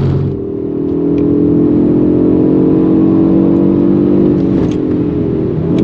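Audi RS3's 2.5 TFSI turbocharged five-cylinder engine heard from inside the cabin, accelerating steadily. Near the end the engine note breaks briefly and comes back a little lower in pitch.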